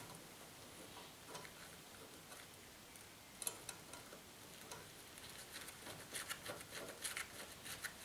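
Faint, scattered clicks and light metallic ticks of small parts being handled, with a sharper click about three and a half seconds in and a quicker run of ticks near the end, as a nut is threaded finger tight onto a front sway bar link.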